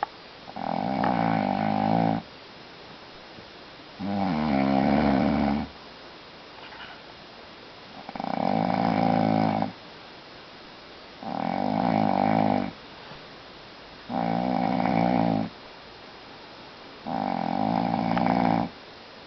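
Grandpa snoring in his sleep: six long, rattling snores, one every three seconds or so, each lasting about a second and a half.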